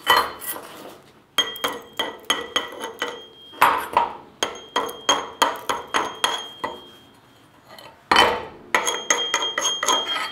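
Chipping hammer striking a steel angle-iron bracket to knock the slag off a dual shield flux-core weld: sharp, ringing metallic taps in quick runs of about four to five a second, with a short pause about seven seconds in.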